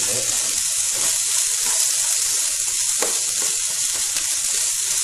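Sliced ginger and onion sizzling in hot olive oil in a pan, stirred by hand: a steady frying hiss.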